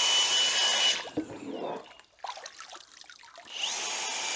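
Kress 20V brushless 3/4-inch cordless impact wrench spinning freely with a steady high whine, water spraying out of its housing, until it stops about a second in. It is then plunged into a tub of water with splashing and sloshing. Near the end the wet wrench is triggered again and runs steadily, still working after the dunk.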